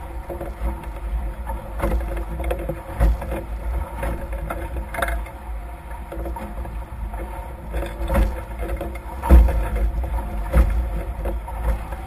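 Wind buffeting the microphone and water rushing past the hulls of a Nacra F18 racing catamaran under sail, with irregular thumps as the hulls meet the chop. The loudest thump comes about nine seconds in.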